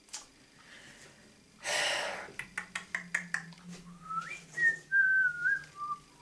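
A man whistling a short, wandering tune of a few notes that rise and fall, the idle whistle of someone thinking it over. Before it comes a breathy exhale and a quick run of about eight clicks.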